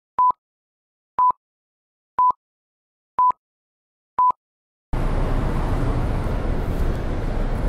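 Five short film-leader countdown beeps, one a second, all at the same pitch. About five seconds in they give way to a steady, low-rumbling background noise of a shopping arcade.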